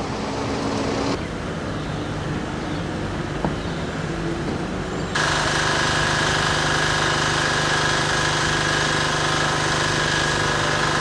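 A low outdoor background for about five seconds, then a steady, louder motor hum with several fixed pitches that starts abruptly and holds without change.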